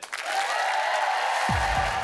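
Studio audience applauding over a musical sting, with a deep bass coming in about a second and a half in.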